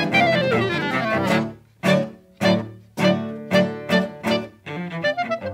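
Chamber trio of clarinet, cello and classical guitar playing a contemporary piece. A loud descending run falls over about a second and a half. It is followed by a string of short, sharply accented chords about half a second apart, with quicker, lighter ones near the end.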